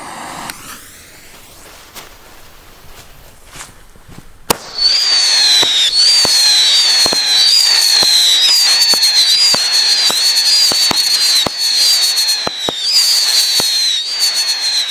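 Weco 'Vampir' 15-shot firework battery firing. About four and a half seconds in it starts shooting, a rapid string of shots for about ten seconds, each carrying a high whistle that falls in pitch, the whistles overlapping one after another. It cuts off abruptly at the end.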